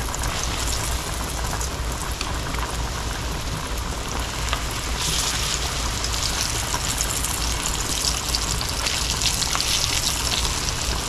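Flour-dredged chicken sizzling as it fries in hot melted shortening in a deep cast iron skillet. The sizzle grows louder about five seconds in and again near the end as more pieces go into the grease.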